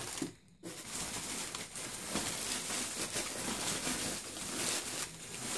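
Plastic protective bag around a computer monitor rustling and crinkling as it is handled in its foam packing, starting about half a second in.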